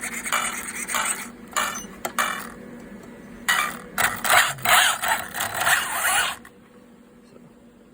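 Scraping and rustling handling noises in a series of short, uneven bursts, loudest about four to six seconds in, stopping suddenly just after six seconds.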